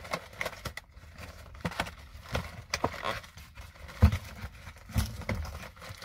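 A cardboard snack-bar box being opened and handled: irregular crackling, clicks and rustling, with a couple of dull thumps.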